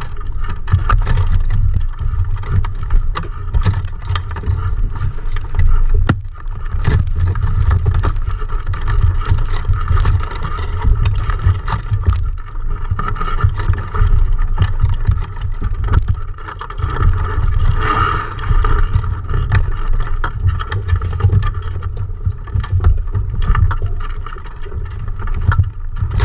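Wind rumbling unevenly on the microphone of a camera mounted at the top of a small sailboat's mast, with frequent clicks and knocks.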